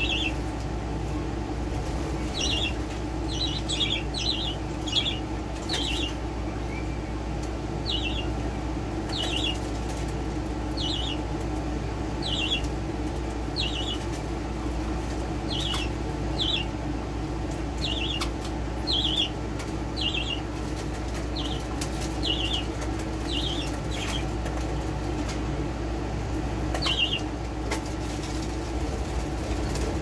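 Budgies chirping, a short falling chirp every second or so, with now and then a brief flap of wings, over a steady low hum.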